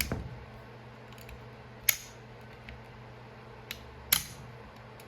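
A few sharp, separate metallic clicks from work on a chainsaw's ignition points with a points file, over a faint steady hum. The loudest clicks come about two and four seconds in.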